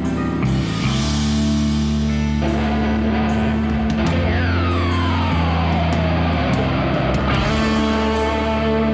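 Background rock music with electric guitar and drums, with a long falling guitar glide in the middle.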